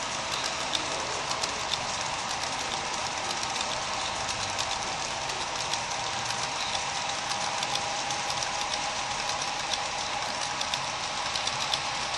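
HO scale model freight cars rolling along the track, with a steady whirring hum and frequent small, irregular clicks from the wheels on the rails.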